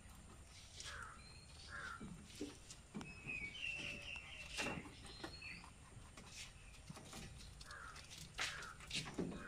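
A rabbit chewing fresh pennywort leaves, heard as faint crisp crunching clicks, with birds calling and chirping in the background. A short warbling bird phrase comes about three to four seconds in.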